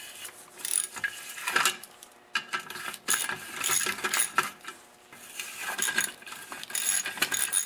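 Socket ratchet loosening the muffler bolts on a small Tecumseh engine: its pawl clicking in short bursts on each back-stroke, with light metal clinks of the socket and handle.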